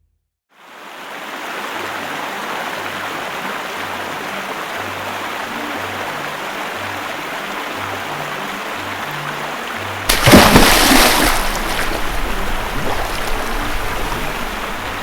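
Background music with a plodding bass line over a steady rushing hiss from a VP321 chamber vacuum sealer. About ten seconds in, a sudden loud rush of air tapers off over two or three seconds, the sound of air flooding back into the chamber once the cycle ends.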